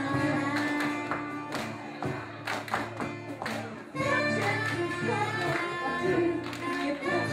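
Live song with a woman singing over the band's steady bass. The music thins out briefly, then comes back in full about four seconds in.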